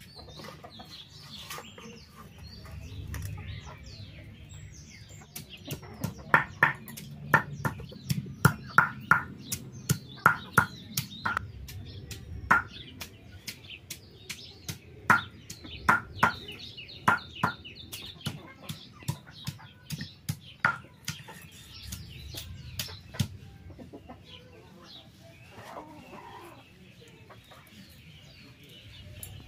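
Sharp knocks of a stone pestle pounding shallots and garlic on a stone slab, about twice a second through much of the middle stretch, with chickens clucking in the background.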